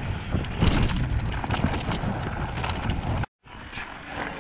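Cube Stereo Hybrid 140 electric mountain bike rolling over a rough gravel track: steady wind buffeting on the microphone and the bike rattling and knocking over stones. The sound drops out a little past three seconds and comes back quieter.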